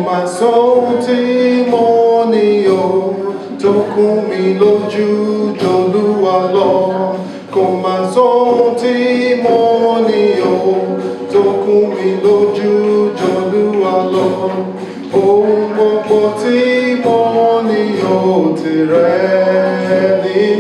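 Traditional Yoruba song sung a cappella by a man and a woman and another man, the voices singing together without instruments.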